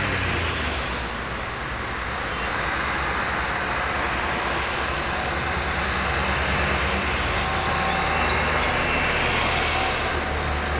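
Engines and tyres of a convoy of World War II jeeps and army trucks driving past, a steady mixed running sound with a low engine drone.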